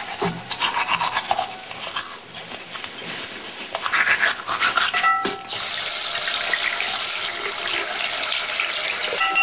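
Teeth being brushed with quick scratchy strokes, then a bathroom tap running steadily into the sink from about five and a half seconds in.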